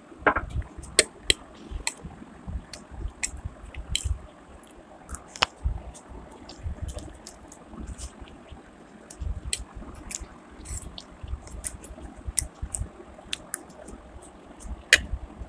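Close-up mouth sounds of a person eating chicken pakoras and chowmein noodles: wet chewing, with many sharp, irregular smacking clicks. Near the end the noodles are sucked up off a fork.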